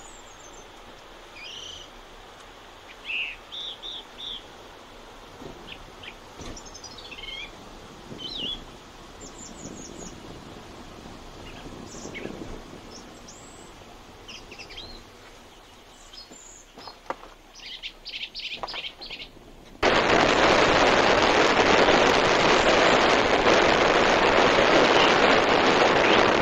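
Birds chirping and calling in short scattered phrases over a faint steady background hiss, with a quick run of rapid notes shortly before the change. About 20 seconds in, this gives way abruptly to a loud, steady rush of wind and vehicle noise, as from riding along a road.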